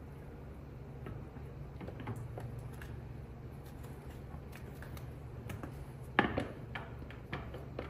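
Porsche 911 flywheel being worked by hand onto the crankshaft flange and its locating dowel: scattered light metallic clicks and clinks, with one sharper metal knock about six seconds in, over a steady low hum.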